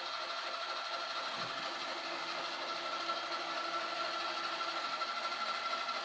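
Sichler NC-5725 robot vacuum running: a steady whir of its motors with a thin, even whine.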